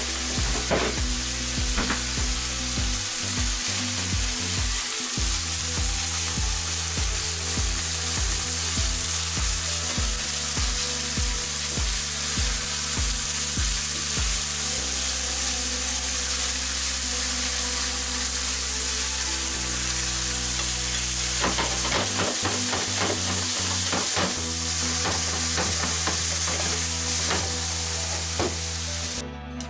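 Minced pork and Thai basil sizzling steadily as they are stir-fried in a frying pan. Short clicks and scrapes of stirring come near the start and in a flurry about three quarters of the way through.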